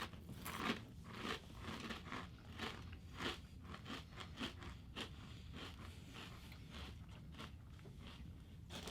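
Crunching and chewing of ridged Ruffles potato chips in the mouth: crisp crunches about every half second at first, growing fainter and sparser as the chewing goes on.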